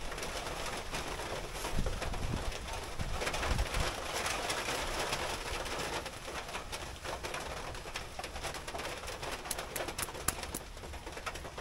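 A dove cooing over a steady background hiss, with a few sharp clicks near the end.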